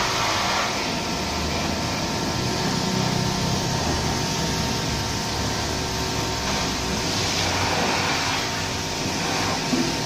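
Electric pressure washer running with a steady motor hum and the hiss of its water spray, with a brief knock near the end.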